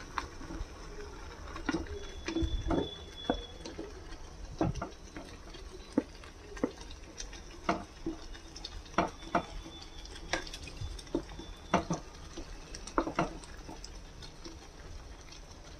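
Wooden spatula stirring chicken pieces into thick gravy in a metal pan, with irregular knocks and scrapes of the spatula against the pan over a soft wet simmer.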